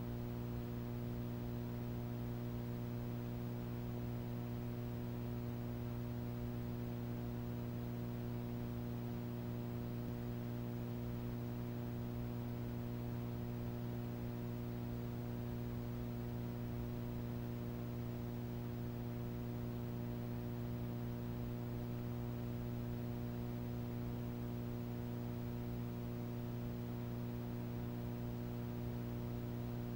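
Steady low electrical mains hum, with a faint buzz of higher overtones and light hiss. It is unchanging, with no other sound.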